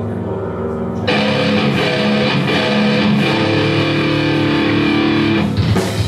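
Live rock music led by electric guitar; about a second in the full band comes in louder with distorted guitar.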